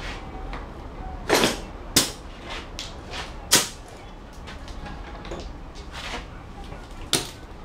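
A few sharp metallic clanks and knocks as tools and parts are handled on a workbench during a transmission teardown: four separate hits with gaps between, the first a little longer and ringing.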